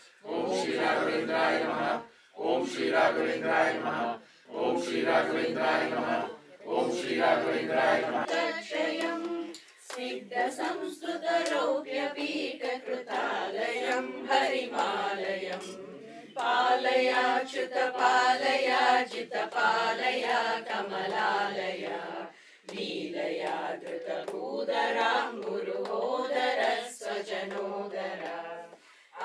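A group of devotees, men and women, chanting a Sanskrit devotional hymn in unison, phrase by phrase with short pauses for breath.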